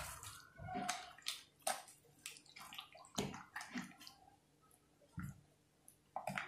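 A metal spoon stirring beef chops through a thick yogurt-and-tomato marinade in a steel bowl: irregular wet squelches and slaps, with sharp clicks of the spoon against the steel.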